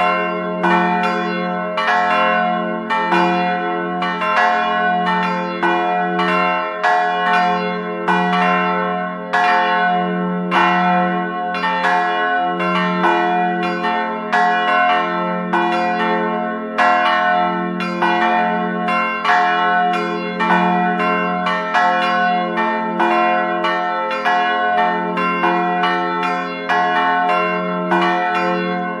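Church bells ringing a continuous peal, struck in quick succession about two times a second, each stroke ringing on over the next.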